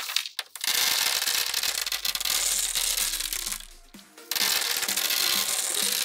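Many small magnetic balls clicking and rattling together in a dense crackle, opening with one sharp click and breaking off briefly about four seconds in. Background music sounds under the second half.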